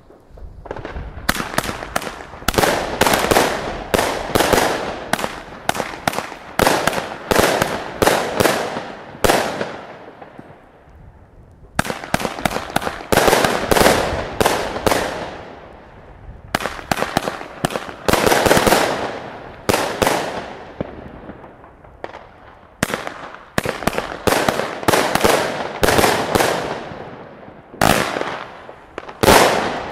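Wolff Air Raid 36-shot 20 mm fireworks cake firing: rapid volleys of sharp bangs, each with a short fading tail. The volleys are broken by brief lulls about ten, sixteen and twenty-one seconds in.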